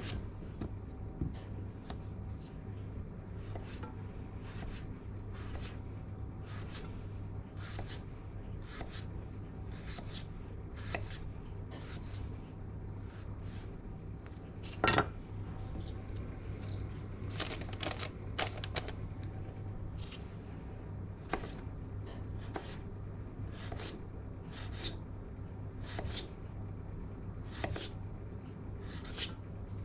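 Chef's knife slicing food on a wooden chopping board: irregular knocks of the blade against the board, about one or two a second, with one louder knock about halfway through. A steady low hum runs underneath.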